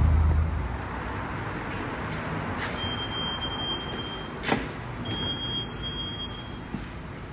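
SkyTrain noise in a station: a steady rush of train and platform noise with a low rumble at first, then two high, steady squeals, each over a second long, with a sharp knock between them.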